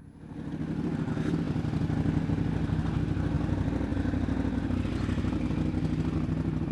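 Buell 1125R's 1125 cc V-twin engine idling steadily, with a fast, even pulsing and no revving.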